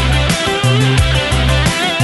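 Background instrumental music with a steady beat and heavy bass notes.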